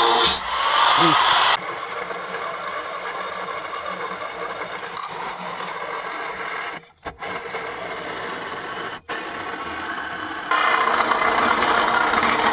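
Angle grinder cutting rusted steel, then from about a second and a half in a cordless reciprocating saw (Sawzall) cutting through a rusted bolt, stopping briefly twice and getting louder again near the end.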